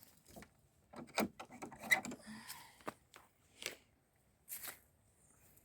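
A run of short sharp clicks and knocks mixed with scraping, rustling sounds, with a brief rustle a little after halfway.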